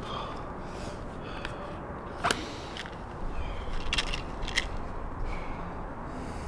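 Small objects handled by hand: a few sharp clicks and taps, the loudest about two seconds in, over a steady low rumble of room noise.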